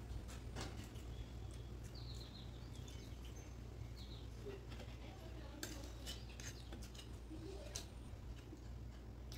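Close-up eating sounds: chewing, lip smacks and scattered sharp clicks as food is eaten by hand, over a steady low hum.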